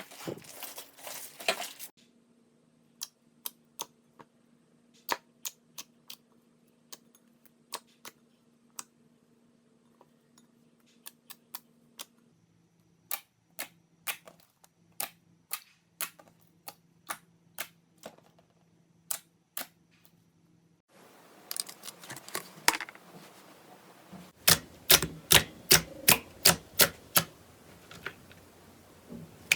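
Sharp clicks and pops of slime being pressed and stretched by hand. They come as a sparse run of single clicks, then a noisier, busier stretch near the end with about two clicks a second.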